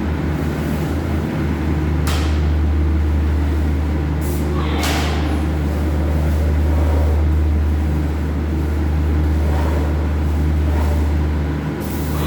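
Steady, loud low machine hum, with a few short hissing bursts, about two seconds in and again around four to five seconds in.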